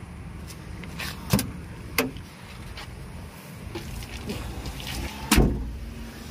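Cab door of a small pickup truck: a couple of sharp clicks and knocks, then the door slammed shut about five seconds in, with a vehicle engine running low underneath.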